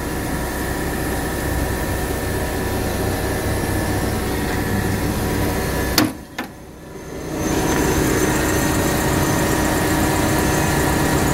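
LP-gas engine of a 5,000 lb Mitsubishi/Caterpillar forklift idling steadily. About six seconds in there is a sharp click and the sound briefly drops, then the engine is louder with its engine cover opened.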